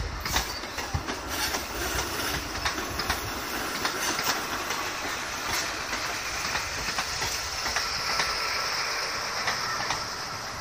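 High Speed Train passing at low speed: Mk3 coaches clicking over rail joints, then the rear Class 43 power car going by with a steady high whine. The sound fades as the train pulls away.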